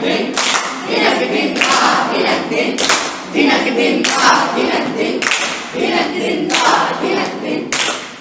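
A group singing a song together, with a sharp beat struck about every second and a quarter.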